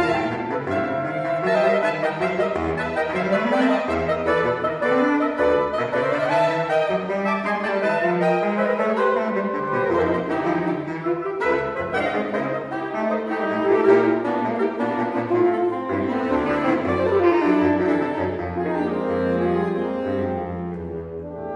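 Saxophone quartet of soprano, alto, tenor and baritone saxophones playing a tango, the baritone carrying a low bass line under the moving upper parts. Near the end the high notes fall away and the playing eases to softer held notes.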